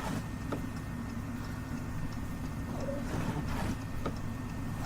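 Low, steady vehicle rumble with a few faint ticks.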